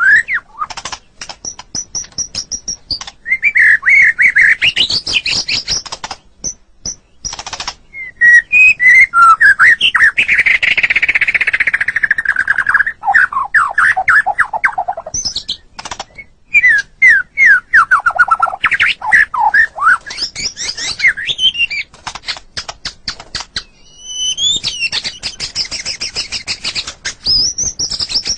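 White-rumped shama (murai batu) singing a long, varied song of loud whistles, slurred phrases and rapid chattering notes, ending in a fast, evenly repeated trill.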